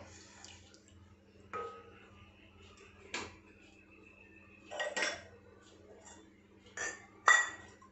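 Kitchen utensils clinking and knocking: about five separate clinks of a spoon against a pot and containers, some with a brief ring. Two come close together near the end, and the last of them is the loudest.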